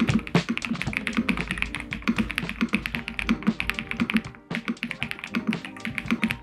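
Fast typing on a mechanical keyboard fitted with Ajazz Gift switches: a quick, dense run of key clacks with a short pause about four and a half seconds in, over soft background music.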